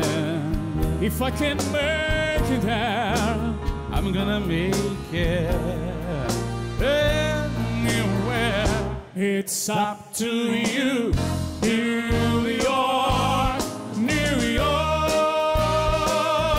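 Live band music with a singer holding long notes with wide vibrato, in a lyrical, operatic style. About nine seconds in, the band briefly drops out around a few accented hits, then the song comes back in.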